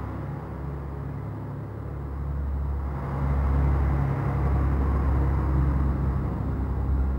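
Diesel engine of an X 73500-series single-car TER railcar pulling out of the station: a low, steady engine note that grows louder about three seconds in as the railcar draws close and passes.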